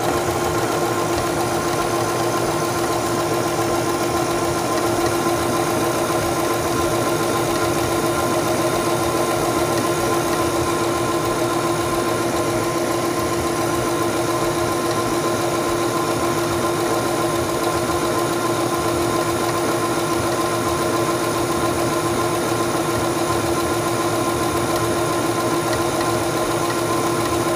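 Singer Stylist 7258 computerized sewing machine running at a steady speed, sewing a decorative star stitch: an even mechanical whir.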